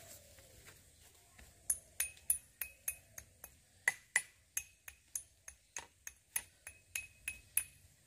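Even series of sharp metallic clinks, about three a second, each ringing briefly: a handheld metal rod tapping a small metal object, starting about a second and a half in.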